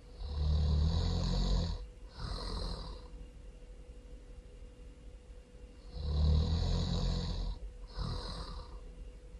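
A person snoring loudly. There are two snoring breaths about six seconds apart, each a long, low snore followed after a brief gap by a shorter, higher one.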